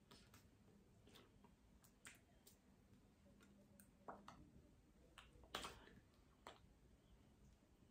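Near silence: room tone with faint, irregular soft clicks and taps from a person signing, the loudest a little past halfway.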